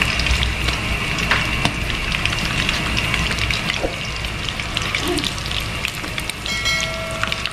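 Mackerel frying in hot oil in a nonstick wok: steady sizzling with constant small crackles. A short ringing tone sounds near the end.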